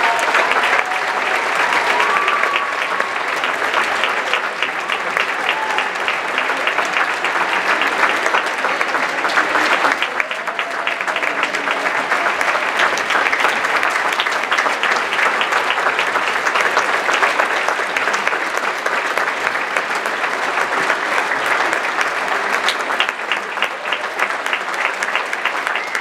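A theatre audience applauding steadily: many hands clapping together in a dense, continuous patter.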